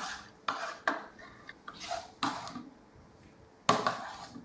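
Metal spoon stirring batter in a plastic mixing bowl, with several sharp knocks and scrapes of the spoon against the bowl's sides.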